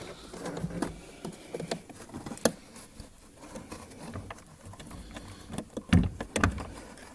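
Small scattered clicks and rustles of a plastic electrical plug and its wiring being handled and turned, with a sharper click about two and a half seconds in and a dull knock near six seconds.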